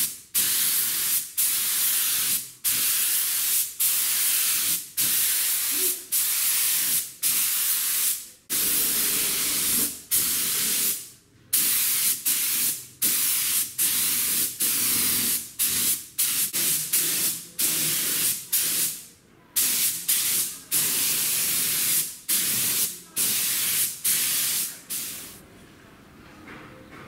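Compressed-air paint spray gun hissing in short bursts of about a second each, the trigger pulled and released between passes as it sprays paint; the hiss stops near the end.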